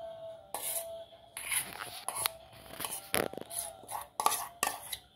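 Steel spoon scraping and clinking against a stainless-steel kadhai as solid ghee is spooned into it: a run of short, irregular scrapes and taps.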